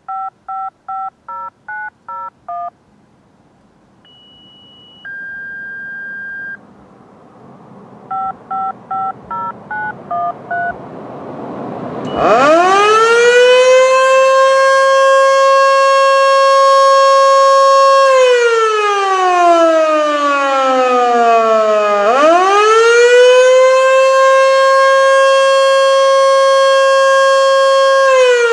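Pager activation tones: two quick series of short touch-tone beeps with a steady tone between them. Then a Federal Signal Model 2 mechanical siren winds up about twelve seconds in, holds a steady wail, slides down, and winds up again to a second steady wail that begins to fall near the end: the attack signal.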